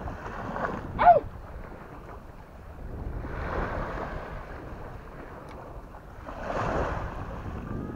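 Small waves breaking and washing up a sandy beach, two surges about three and six seconds in, over wind rumbling on the microphone. A short falling cry about a second in.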